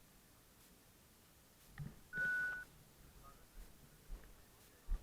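A single electronic beep: one steady tone held for about half a second, just after a soft knock about two seconds in, with near silence around it.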